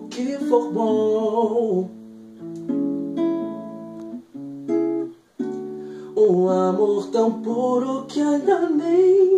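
A man singing with acoustic guitar accompaniment; the voice drops out about two seconds in, leaving the guitar alone, and comes back in about six seconds in.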